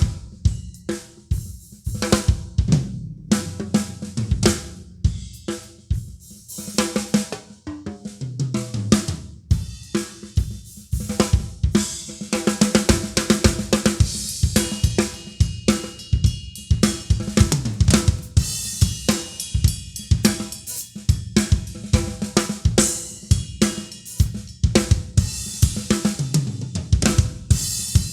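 Drum kit played continuously: kick drum, snare, hi-hat and cymbals in a steady beat. The cymbals wash louder from about twelve seconds in.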